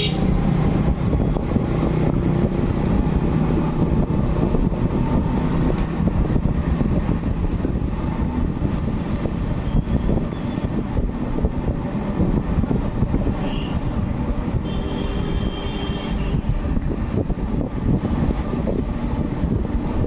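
Steady low rumble of a vehicle in motion, with a brief high tone about fifteen seconds in.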